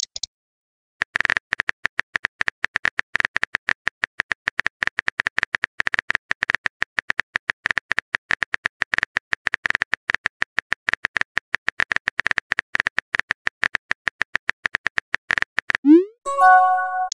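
Rapid, irregular phone-keyboard typing clicks, the sound effect of a texting app. Near the end comes a short rising pop followed by a brief chime of a few steady tones: a message notification sound.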